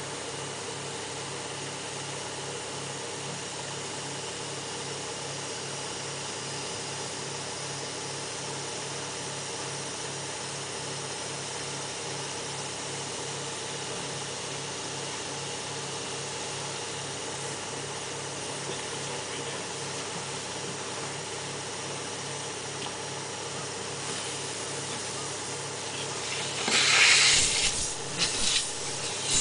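A machine running steadily with an even drone and hum. Near the end a loud hissing rush comes on in several spurts from a hose.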